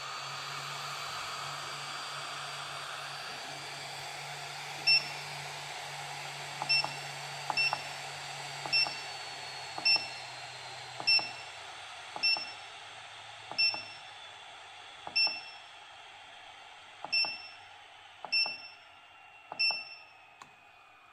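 Hot air gun of an 8586D rework station blowing, a steady rush of air with a fan whine. From about five seconds in, the station beeps about a dozen times, once per button press, as the airflow setting is stepped down; the whine slowly falls in pitch and the air grows quieter.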